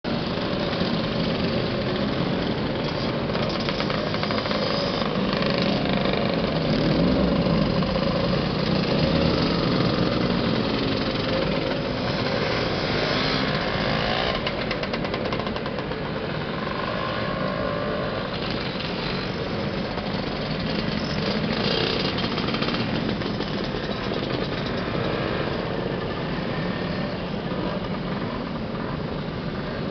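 A procession of classic two-stroke motor scooters riding past one after another: a continuous overlapping engine sound from many small engines, swelling a little as the bunched groups go by.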